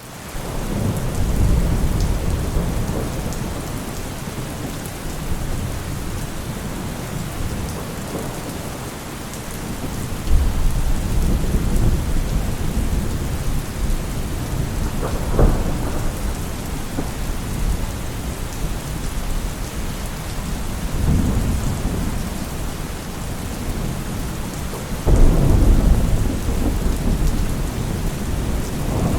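Heavy rain pouring steadily, with thunder rolling in low rumbles several times; a sharp crack of thunder about halfway through and the loudest rumble a few seconds before the end.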